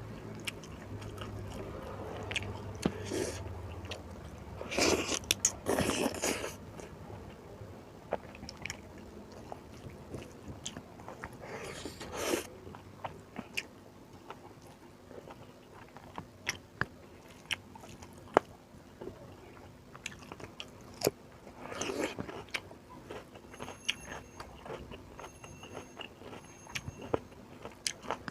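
A person chewing a mouthful of rice and beef curry close to the microphone: wet chewing with frequent sharp mouth clicks and a few louder noisy bursts about five, twelve and twenty-two seconds in.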